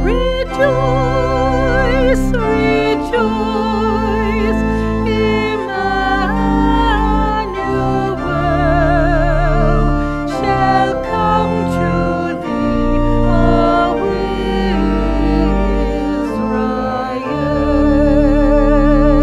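Church organ accompanying a hymn, the gathering hymn that opens Mass, with a singing voice carrying the melody with a wide vibrato over sustained chords and deep bass notes; it settles onto a long held chord near the end.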